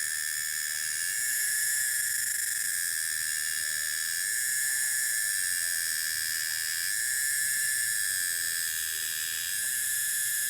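A cicada (gareng) singing in a tree: a continuous shrill, high-pitched drone with a steady whistling tone, swelling louder and easing back every few seconds.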